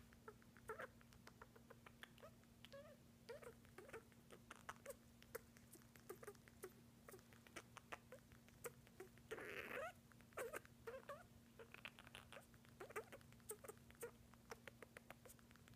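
Senegal parrot making its soft little mating-dance noises: many faint clicks and brief squeaky clucks in an irregular stream, with one short hissing burst about nine and a half seconds in.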